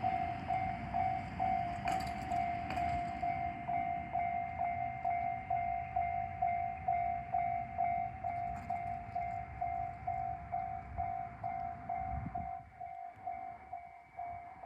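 Japanese level crossing alarm ringing in a steady rapid ding-ding, about three strokes a second, as a KiHa 185 series diesel railcar passes with a low rumble and a couple of wheel clacks. The rumble dies away near the end while the alarm keeps ringing.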